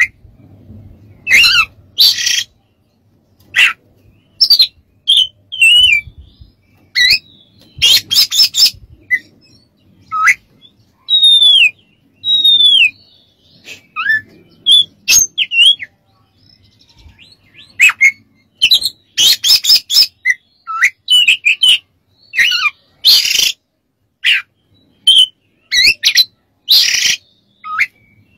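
Oriental magpie-robin (kacer) singing in short, loud phrases: harsh rasping notes alternate with clear whistled slurs, several of them falling whistles, with a short lull a little past halfway.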